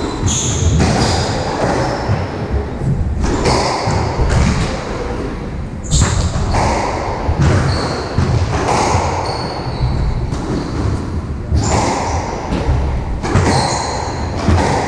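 Squash rally: the ball is struck by rackets and smacks off the court walls, sharp hits about every one to two seconds, with short high squeaks of court shoes on the wooden floor between them.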